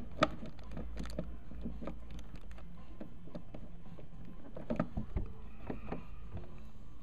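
Handling clicks and knocks of a plastic cigarette-lighter socket being pressed by hand into its hole in a boat's thin plastic glove box. A sharp click comes just after the start and a cluster of knocks about five seconds in.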